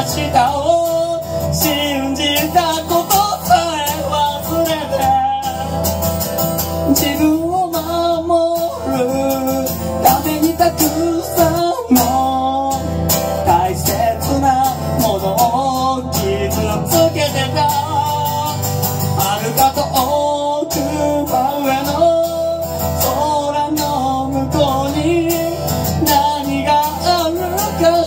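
A man singing while strumming a cutaway acoustic guitar, a live solo song through a microphone.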